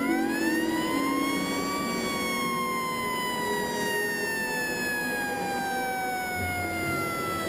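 Fire engine siren winding up to a peak about two seconds in, then slowly falling in pitch.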